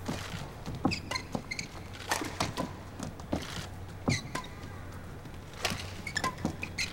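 Badminton rally: sharp racket strikes on the shuttlecock every second or two, with players' shoes squeaking on the court between them.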